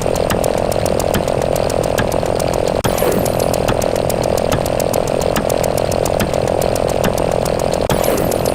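A steady, loud buzzing drone with rapid, evenly spaced ticks about five a second, from the sound effects of a counting animation. The sound cuts out briefly twice, about three seconds in and near the end.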